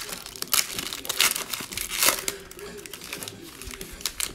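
Foil wrapper of an Illusions basketball card pack crinkling as it is torn open and pulled apart by hand: an irregular run of crackly rustles, loudest about half a second, a second and two seconds in.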